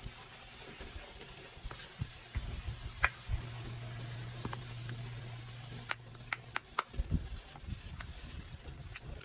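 Objects being handled during an unboxing: scattered sharp clicks and taps, bunched between about six and eight seconds in, over a steady low hum.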